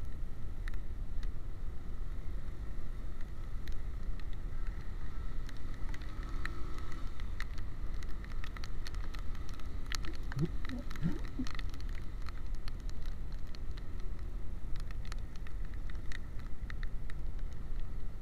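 A small-displacement motorcycle ridden in the rain: a steady low rumble of engine and wind on the microphone, with many scattered ticks of raindrops striking the camera.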